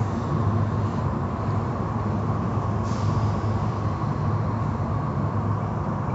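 Automatic car wash running: blue cloth brush strips sweeping over a foam-covered car, over a steady low rumble of the wash machinery.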